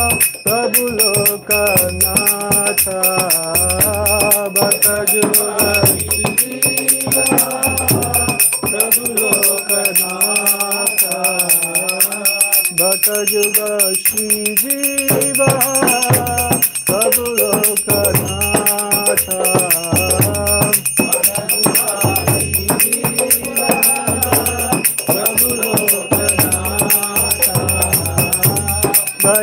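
Devotional kirtan: voices singing a melody over a steady jingling beat of hand cymbals and a deep drum. The drum drops out for a few seconds near the middle, then returns.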